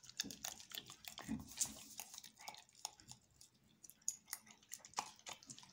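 Dogs chewing and smacking on canned meat dog food taken off a fork: a faint run of irregular wet clicks and smacks.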